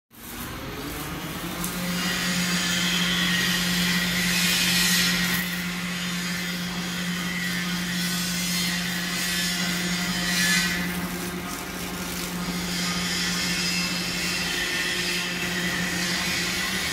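Old-model rewinding machine for insect glue-trap film running at medium speed: a steady motor hum under the rush of the web over the rollers, swelling twice.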